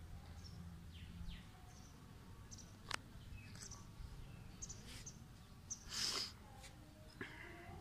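Faint birds chirping, scattered short calls, over a low rumble. A sharp click comes about three seconds in, and a brief louder hiss, the loudest sound, about six seconds in.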